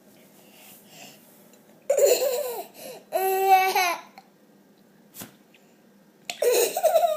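A person laughing in high-pitched, hiccup-like bursts: three loud bursts, the middle one a held squeal, with a short sharp catch of breath in between.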